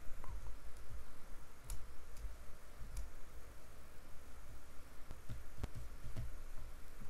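A handful of separate, irregularly spaced clicks from the computer's input devices during 3D sculpting, over a steady low rumble of room and microphone noise.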